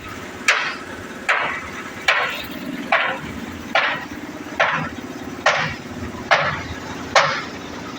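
Hammer striking metal at an even pace, nine blows a little under a second apart, as when driving a brake bushing on a Mercedes-Benz Actros truck. A steady mechanical hum runs underneath.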